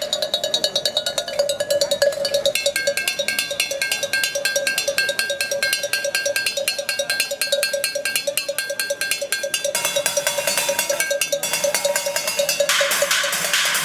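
Rapid, even drumming with sticks on upturned metal pots, pans and tins, with a steady metallic ring under the strikes. A higher ringing note joins in about two seconds in and drops out near ten seconds.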